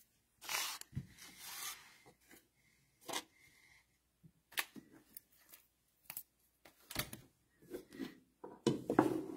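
Trading cards and foil card packs being handled on a table: a crinkling rustle about half a second in, then scattered light clicks and taps as cards are set in place, with a louder rustle and bump near the end.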